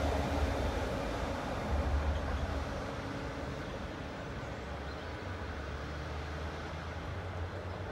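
NS ICNG electric intercity train running away along the track, a low hum and rumble that fades over the first few seconds as it recedes, then stays faint.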